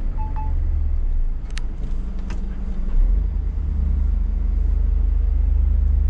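Scania S500 truck's diesel engine running steadily, heard from inside the cab. The deep rumble grows heavier about halfway through as the engine takes load.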